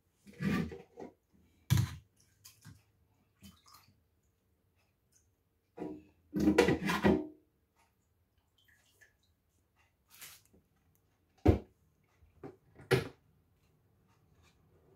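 Raw potato chunks dropped by hand into a plastic blender jar, knocking and clattering in several handfuls, the biggest cluster about halfway through. A sharp single knock later on as the jar is handled and set on the blender base.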